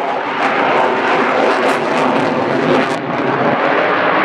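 Military fighter jet flying past overhead: loud, steady rushing jet engine noise with a crackle in it. The high hiss drops away about three seconds in as the jet flies off.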